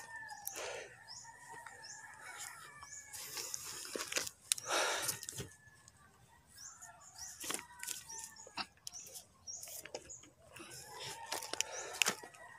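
Close handling noise as a man picks up and shoulders a wooden pole: scattered knocks and clicks with crunching, rustling bursts, the loudest about three and five seconds in. Birds chirp in the background.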